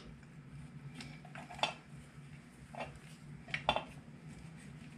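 A handful of small, light clicks and taps from hands handling wires and a connector on a circuit board, the sharpest about a second and a half in and a close pair near four seconds in, over a steady low hum.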